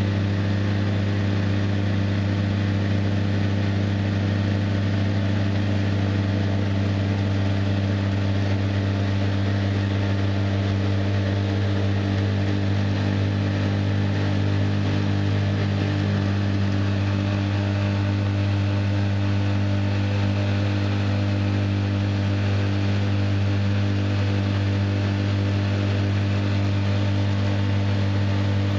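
Polaris RZR side-by-side engine held at a steady pitch under load while all four tyres spin on a rock in a burnout.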